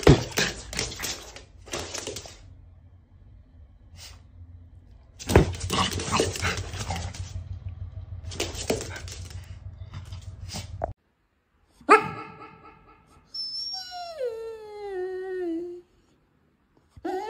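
A Shiba Inu barking and yelping in short bursts, in two spells. Then a second dog vocalizes at a microphone: a long wavering whine-howl that slides down in pitch, and another cry starts near the end.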